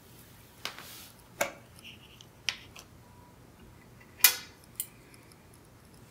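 Several sharp clicks and knocks at irregular intervals, like small objects being handled; the loudest comes a little past four seconds in.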